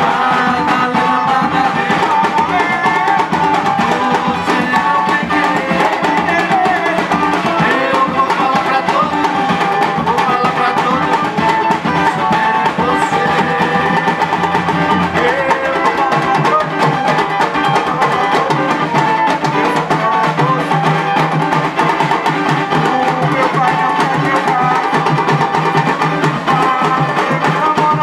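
Live samba music: a band's drums and percussion keeping a steady beat under a pitched melody.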